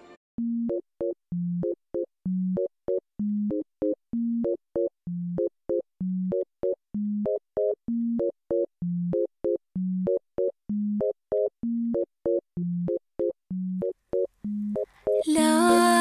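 Electronic music: a sparse repeating riff of short, clipped synth notes, a low note followed by a quick pair of higher ones, with silences between and the low note alternating between two pitches. Fuller, denser music comes in about a second before the end.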